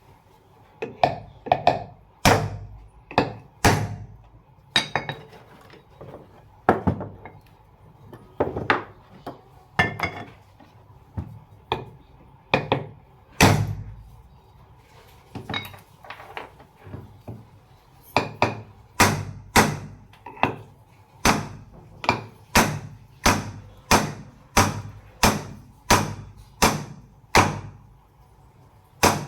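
Hammer blows on the metal parts of a ceiling fan being fitted together: scattered single knocks at first, then from about two thirds of the way in a steady run of about one and a half strikes a second.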